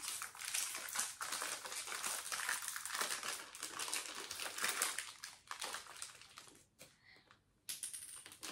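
Thin clear plastic packet of marble-run balls crinkling as it is handled and opened. The crinkling is dense and continuous for about five seconds, then turns into sparser crackles.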